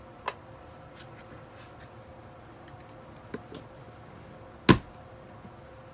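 Sharp clicks and knocks of a portable CD radio and its power cord being handled as the cord is tried: one click under a second in, a softer one just past three seconds, and the loudest about four and a half seconds in.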